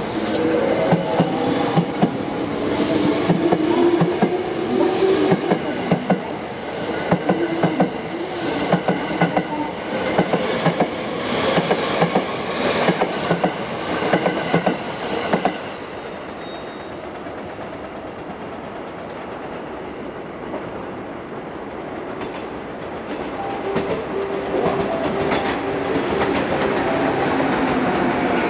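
Electric train running on jointed track: rapid clacks of the wheels over rail joints with a humming tone from the motors. About halfway through it drops to a quieter, steady rumble, then builds again near the end.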